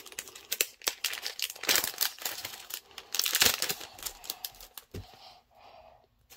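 Foil wrapper of a Pokémon TCG booster pack crinkling and tearing as it is ripped open and the cards are drawn out, the loudest bursts of crinkling about two seconds and three and a half seconds in, then only light rustles.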